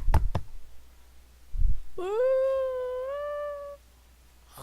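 Three quick knocks on a door, then a dull thud. After that comes a long hummed tone that slides up and then holds steady for almost two seconds.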